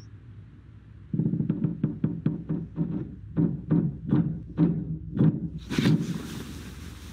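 Horror film soundtrack: a low, rapid, uneven knocking beat starts about a second in and builds to a loud rush of noise near the end, which fades into a hiss.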